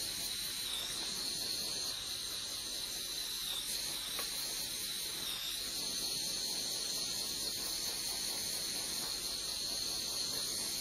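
Propane blowtorch burning with a steady, high hiss as its flame plays on a steel bracket.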